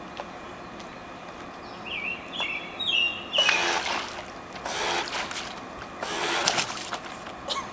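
Three short bursts of an RC boat's motors spinning its propellers and churning the water. The bursts come from bang-bang (on/off) throttle control. Birds chirp just before the first burst.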